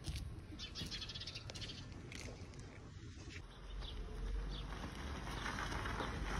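Small birds chirping, then a Maruti Suzuki S-Presso hatchback pulling out onto a dirt road, its sound growing steadily louder in the second half.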